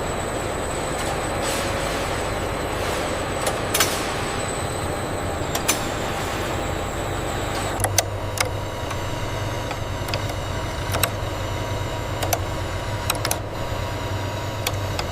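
Machinery running steadily: a loud hum and hiss with a couple of steady tones, and sharp clicks and clacks every second or so.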